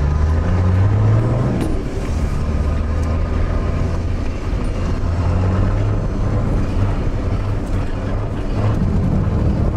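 Off-road 4x4's engine and drivetrain heard from inside the cabin while driving over snow: a steady low drone that rises slightly in pitch about a second in and again near the end, with road and tyre noise underneath.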